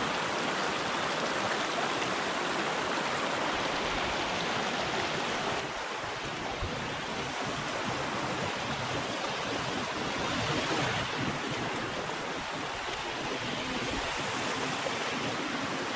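Small rocky mountain stream rushing over stones and little cascades: a steady splashing, gurgling water noise.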